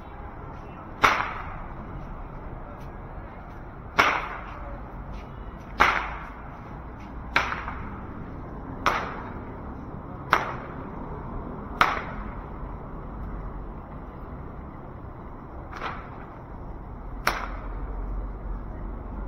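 Loud, sharp single cracks repeated nine times at uneven intervals of one and a half to four seconds, each with a short echoing tail, over a steady low background rumble.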